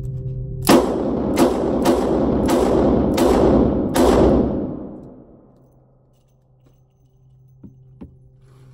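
Six rapid .357 Magnum shots from a Ruger GP100 double-action stainless revolver, fired in just over three seconds, each shot ringing with the echo of an indoor range.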